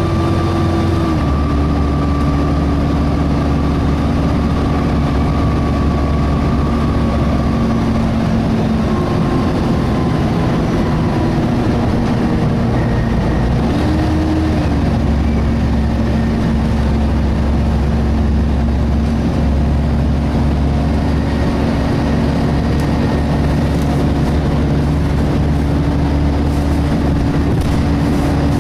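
Volvo B7TL double-decker bus running, heard on board: steady engine and cooling-fan hum that shifts in pitch about a second in and again around fourteen seconds in.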